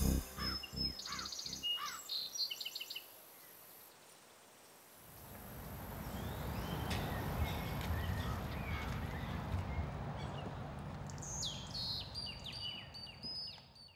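Outdoor ambience: birds chirping in short calls over a steady low background noise, with a brief near-silent break a few seconds in and more chirping near the end.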